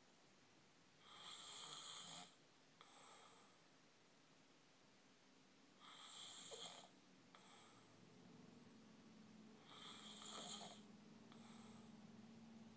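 A sleeping person snoring faintly, three snores about four seconds apart, each followed by a short, softer breath sound. A low steady hum comes in about eight seconds in.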